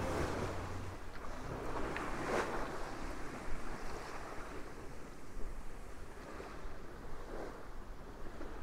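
Sea water rushing and splashing along the hull of a heeled sailboat driving through heavy, wind-whipped seas, with wind noise; one louder splash about two seconds in.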